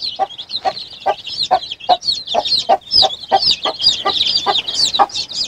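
A brood of baby chicks peeping constantly, many short high chirps overlapping, as they feed from a pan of chopped boiled egg. Under the chirping runs a steady series of short, lower pulses, about three a second.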